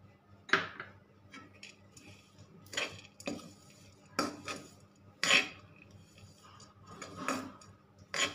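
Steel spatula scraping and knocking against an aluminium kadhai while ground coriander, dry fruits and seeds are stirred and roasted. The strokes come irregularly, about eight in all.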